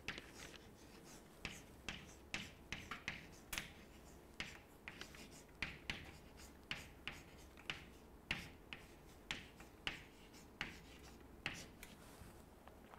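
Chalk writing on a chalkboard: a faint, irregular string of short taps and scratches as letters are stroked out, with brief pauses between strokes.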